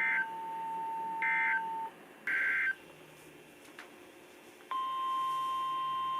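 NOAA Weather Radio EAS/SAME header: three short bursts of warbling data tones about a second apart, then, near the end, the steady single-pitch warning alarm tone that comes before a new warning is read. A separate steady lower tone plays under the first two bursts and stops about two seconds in.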